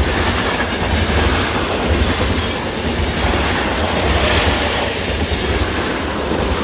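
A train running along a railway track, with a steady low rumble and clattering wheel noise that fades in and out like an edited sound clip.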